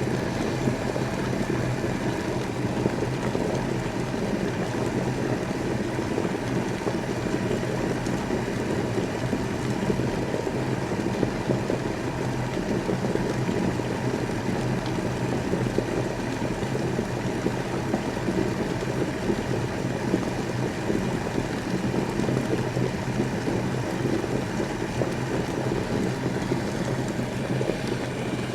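Electric kettle boiling water: a steady rumble with a low hum underneath.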